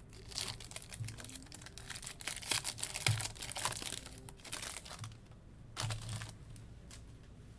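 Foil wrapper of a Topps Chrome baseball card pack being torn open and crumpled by hand: irregular bursts of crinkling and crackling.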